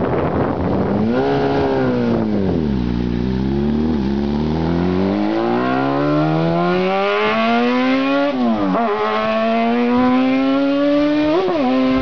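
Fiat 126 race car with a Yamaha 1000 cc inline-four motorcycle engine accelerating hard away: the revs rise and dip as it pulls off, then climb in a long rising scream, dropping sharply at an upshift about two-thirds of the way through and again near the end.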